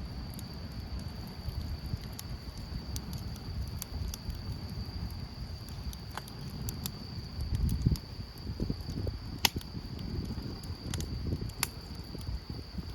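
Storm rain and wind: scattered sharp drop ticks over a low, uneven wind rumble on the microphone, with a steady high-pitched tone throughout.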